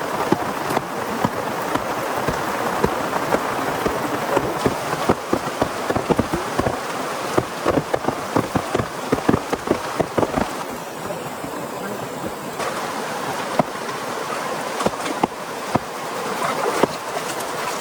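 Heavy rain falling, with many close drops striking as sharp ticks over a steady hiss.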